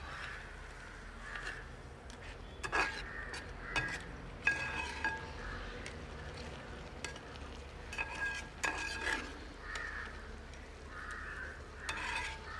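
A spatula stirring and scraping thick crab roast masala around an aluminium pot, with scattered clicks against the pot. Crows caw several times, in short bursts.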